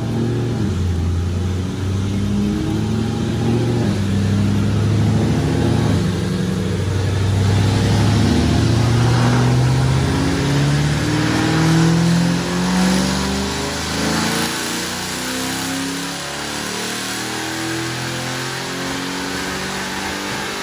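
Background music: a steady stream of low notes stepping from pitch to pitch, getting somewhat quieter partway through.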